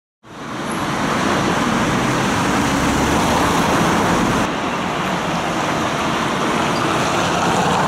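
Street traffic noise: a steady, loud rush of passing road vehicles, changing slightly in tone about four and a half seconds in.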